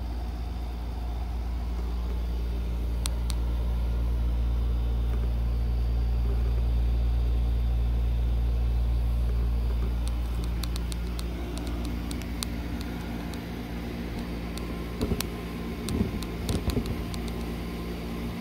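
A steady low machine hum, with a series of even tones above it, swells and then eases off after about twelve seconds. In the second half come scattered clicks and knocks, loudest around fifteen to seventeen seconds, as the camera is handled and set down.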